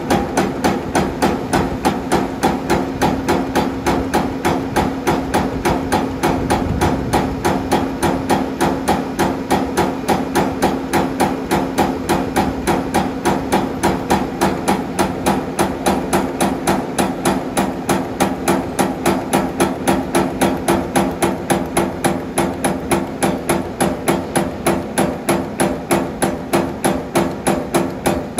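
CNC electric servo turret punch press punching sheet metal: a fast, even run of sharp metallic punch strokes, several a second, over a steady machine hum.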